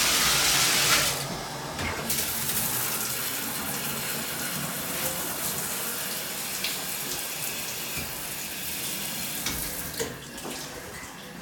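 Water running from a tap into a sink: a loud even rush for the first second, then a lower steady flow with a few small knocks, dropping off near the end.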